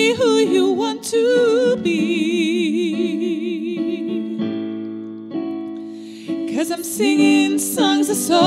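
Piano ballad: a woman sings with wide vibrato over piano, a second harmony voice layered with her. About halfway through the voice stops and a piano chord rings and fades, then the singing comes back in.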